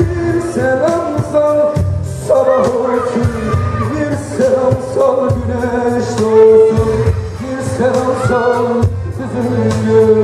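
Live band music with an electric guitar and a singing voice.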